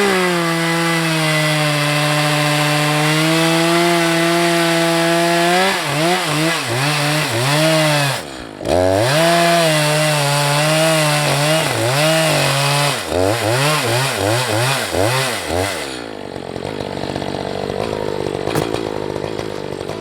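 Echo CS-590 Timber Wolf chainsaw on an Alaskan mill ripping a log into lumber. The engine holds a steady high pitch, then revs up and down repeatedly, dipping briefly about eight seconds in. In the last few seconds the engine note gives way to a quieter hiss.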